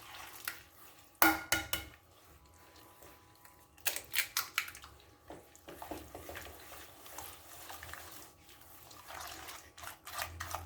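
Sharp clicks and taps against a mixing bowl in two clusters, about a second in and about four seconds in, with softer wet mixing sounds between them: an egg being cracked into melted butter and sugar and mixed in.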